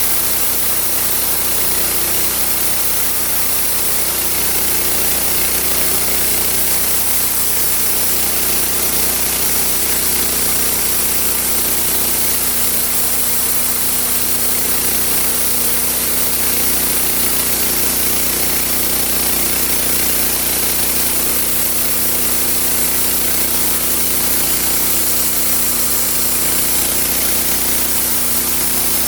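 Homemade bandsaw sawmill running steadily, its engine and blade making a continuous loud mechanical drone with a hissing top.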